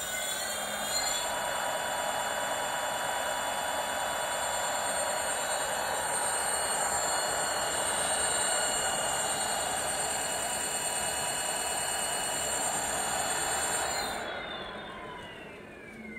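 Brushless gearless direct-drive rear hub motor (48V 1500W) spinning an unloaded 26-inch wheel: a high electric whine of several tones over a hiss. The whine finishes rising about a second in and holds steady at top speed, then falls in pitch and fades near the end as the wheel coasts down.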